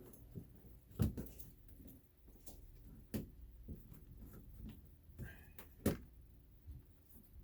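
Several sharp knocks and clunks of objects being handled, the loudest about a second in, about three seconds in and just before six seconds, with quieter taps between them.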